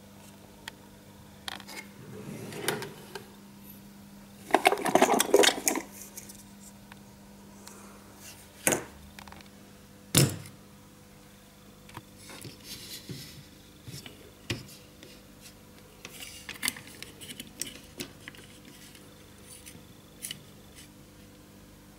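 Hand-handling clatter of a PCB holder on a workbench: a dense burst of rattling about five seconds in, then separate sharp knocks and lighter clicks as the holder's clamp jaws are adjusted and a circuit board is clamped in. A faint steady hum runs underneath.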